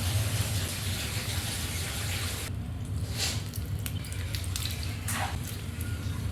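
Kitchen tap running steadily, then turned off about two and a half seconds in, followed by a few light clicks and knocks, over a steady low hum.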